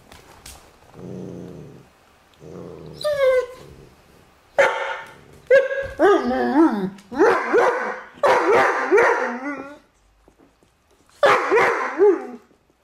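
Dobermanns squabbling over a bone. Two low growls come in the first few seconds, then a string of high, wavering yips and whines, a short pause, and a last burst of cries near the end.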